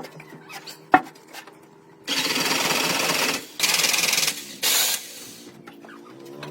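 A power tool run in three bursts, about a second long, then a second, then a brief blip, after two sharp knocks in the first second.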